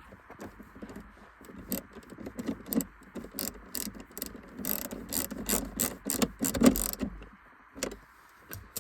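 Hand ratchet tightening T25 Torx screws, its pawl clicking in irregular runs that are busiest in the middle and thin out near the end.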